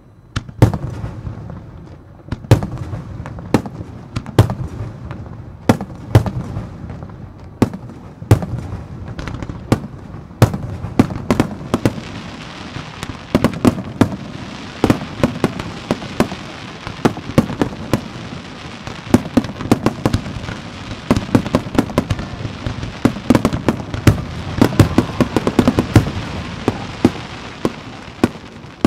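Aerial firework shells bursting: single sharp booms every second or two at first, then from about twelve seconds in a dense run of rapid bangs that builds to a barrage before easing near the end.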